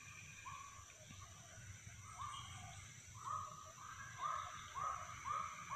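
An animal in the riverside forest calling a series of short, identical notes. They come about two a second and grow louder toward the end.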